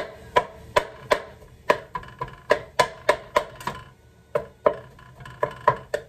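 Metal spatula striking and scraping a pan as it chops up ground beef while it browns: quick ringing clacks, about three a second, with a short pause about four seconds in.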